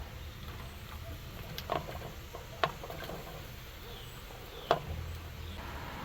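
Three short, sharp knocks over a low steady rumble, the last knock, near the end, the loudest.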